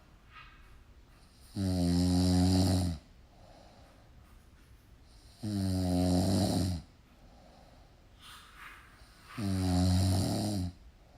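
Snoring: three loud snores about four seconds apart, each a little over a second long, with quiet breathing between them.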